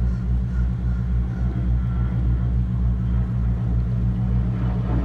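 Deep, steady diesel engine drone from a passing towboat, a low throb with a slight regular pulse.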